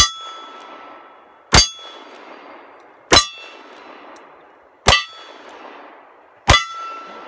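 Five revolver shots fired at a steady pace, about one every second and a half, each followed by the clang and ring of a struck steel target. The ring after the last shot lasts longest.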